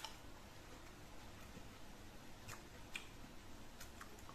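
Quiet eating sounds: a handful of faint, sharp clicks from chewing and a fork on the plate. The loudest comes right at the start, with a few more about two and a half to three seconds in and again near the end, over low room hiss.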